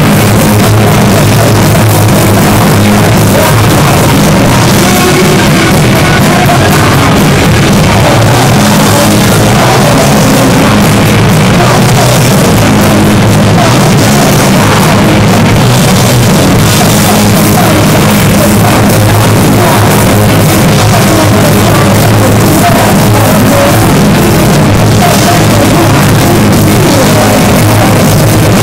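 A live heavy metal band playing loud with distorted guitars and drums, the recording held near full level without a break.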